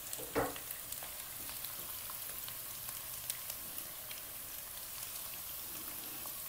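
Crushed tempe frying in hot oil in a pan: a steady sizzling hiss with scattered small crackles as it browns, and a brief spatula sound against the pan about half a second in.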